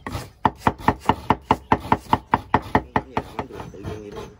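Knife chopping quickly on a cutting board, about five even strokes a second, turning softer and less regular near the end.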